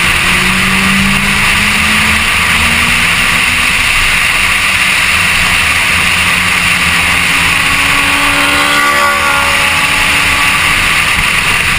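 Car driving at speed: a steady rush of wind and road noise over the low hum of its engine. A fainter, higher engine note rises and falls about eight to ten seconds in.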